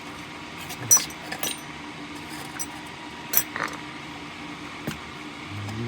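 A few light clinks and taps of small metal parts being handled, the sharpest ones with a short metallic ring; the loudest comes about a second in, with another pair at about three and a half seconds.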